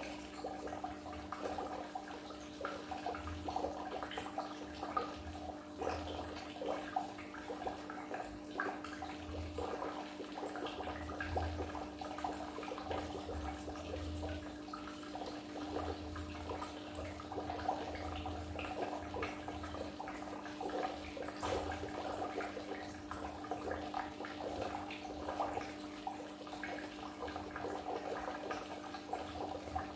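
Goldfish aquarium water bubbling and splashing without a break, over a steady hum from the tank's equipment.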